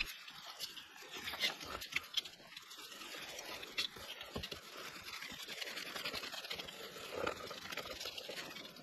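Thread tap in a T-handle tap wrench being turned by hand through a brake-disc bolt hole in a motorcycle wheel hub: faint scraping with small irregular clicks as it cleans paint, swarf and old thread locker out of the threads.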